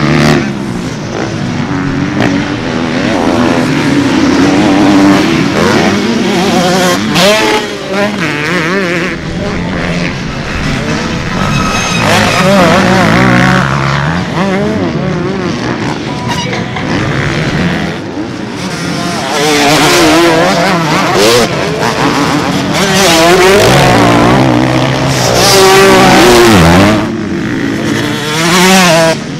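Several motocross dirt bikes' engines revving hard as they ride past, their pitch rising and falling over and over with the throttle and gear changes. The engines are loudest in the second half.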